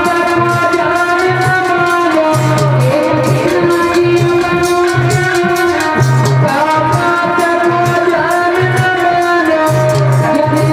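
Live Indian folk music: a woman singing over a hand-drum beat and sustained instrumental tones.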